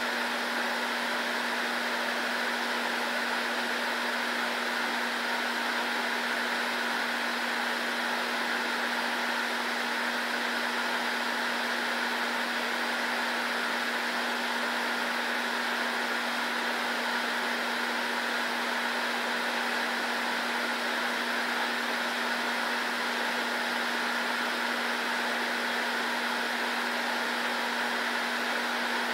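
Steady fan whir with a constant low hum.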